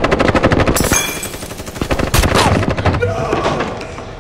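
Automatic gunfire: a long, rapid burst of many shots a second, with a couple of heavier blasts in it, thinning out and dying away near the end.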